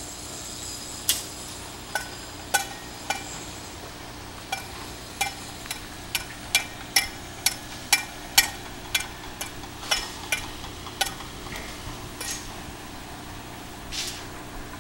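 Steel reinforcing bars clinking: sharp metallic knocks with a short ring, irregular, one or two a second for about ten seconds, then a softer knock near the end. A faint steady low hum runs underneath.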